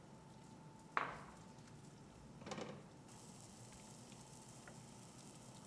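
Wooden spoon stirring a mushroom, pasta-water and Parmesan sauce in a stainless steel sauté pan, with a faint sizzle from the pan. One sharp clink about a second in and a softer scrape a little later.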